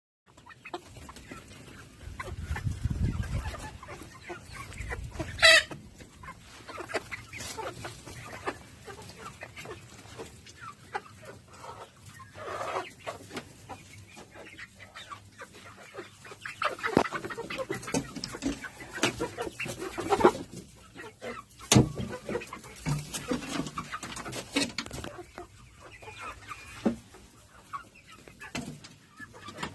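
A flock of desi (country) chickens clucking, with scattered taps and knocks throughout and one sudden loud sound about five seconds in.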